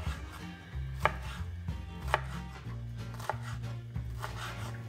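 Chef's knife dicing red bell pepper on a wooden cutting board: the blade knocks sharply against the board at an uneven pace, three strokes standing out louder than the lighter cuts between them.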